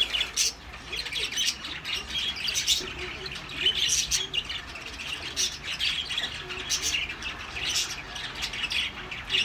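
Birds chirping and squawking: many short, irregular calls.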